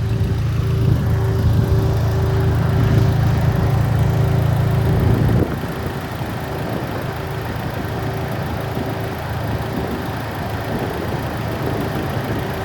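Turbocharged four-cylinder engine of a built 2008 Mitsubishi Lancer Evolution X idling. A strong low hum in its sound drops away suddenly about five seconds in, and the engine runs on more quietly.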